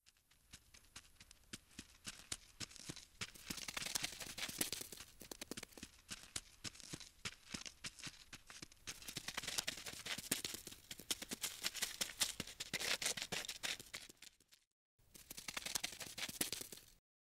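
Skittering sound effect of a crawling ladybug: a rapid, irregular stream of dry scratchy clicks and crackles that swells and fades, cutting out briefly about three-quarters of the way through.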